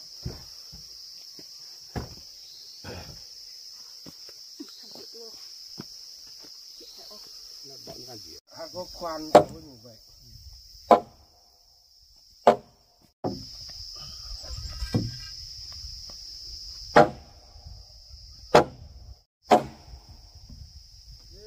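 Steady high trill of insects throughout, with about six loud, sharp knocks at intervals of one to a few seconds in the second half, the loudest sounds.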